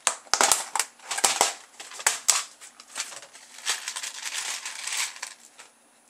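Small plastic and metal parts clattering and rustling in a clear plastic tub as fingers rummage through them, in an irregular run of clicks.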